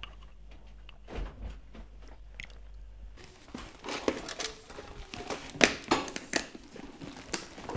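Rapid clicks, knocks and rustles of a school backpack being handled and packed on a desk, starting about three seconds in; before that only a low steady hum.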